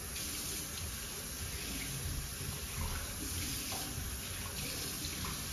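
Kitchen faucet turned on, water streaming steadily into a shaker cup held in the sink.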